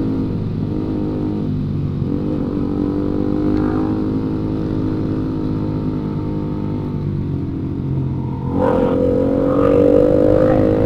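Road vehicle engine running steadily on the move, then speeding up about eight and a half seconds in, its pitch rising and getting louder.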